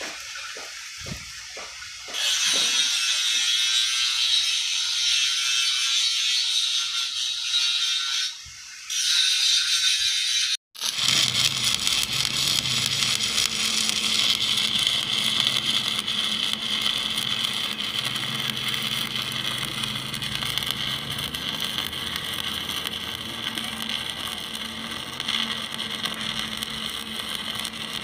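Stick (shielded metal arc) welding on steel: the electrode's arc crackling and hissing steadily. It strikes up about two seconds in, after a few soft knocks, breaks off twice for a moment near the middle, then runs on.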